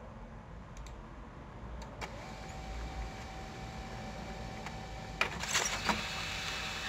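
HP LaserJet P1102 laser printer picking up and feeding a sheet from its front input tray. A steady motor whine sets in about two seconds in, with a cluster of clicks and rattles from the paper path about five seconds in. The new pickup roller is now picking up the paper properly.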